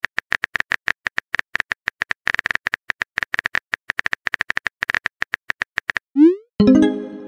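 Synthetic phone-keyboard typing clicks from a texting-story app, rapid and even, several a second. Near the end they stop, a short rising swoosh sounds as the message is sent, and a brief pitched tone follows.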